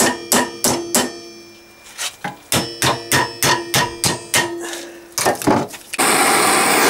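Hammer striking the jaws of locking pliers clamped on a heated, seized needle-bearing inner race, sharp ringing metal blows about three a second, in two runs with a pause between; the race is stuck and not coming off. About six seconds in, a gas blowtorch flame starts hissing steadily.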